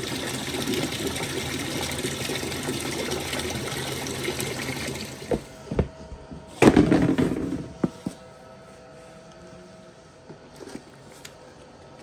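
Water running steadily into a plastic bucket, stopping about five seconds in. A moment later a plastic scoop digs into a bin of powdered calf milk replacer with a short, loud rustle, followed by a few light knocks.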